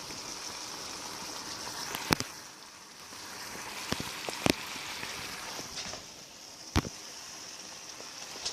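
Steady hiss of a pan sizzling on the stove, with a few sharp knocks and taps of kitchen utensils or containers at irregular intervals.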